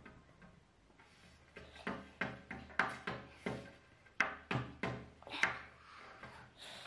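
Eating sounds of fufu and light soup eaten by hand: a run of short mouth smacks and slurps, roughly two a second, starting about a second and a half in.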